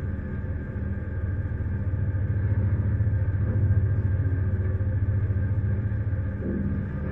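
Research vessel R/V Sanna's engine running with a steady low rumble and hum, heard from high on the ship as it moves slowly through ice.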